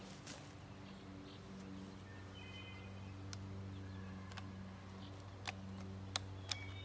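A few faint, sharp metallic clicks from the Akkar 612 pump-action 12-gauge shotgun's action being handled while a fired shell is stuck in it, over a steady low hum.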